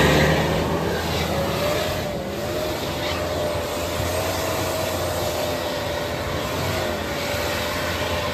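Jeep Grand Cherokee's 4.0-litre straight-six working hard under load, climbing a muddy, snowy slope. The revs rise in the first second and are then held steady, with a high whine over the engine note.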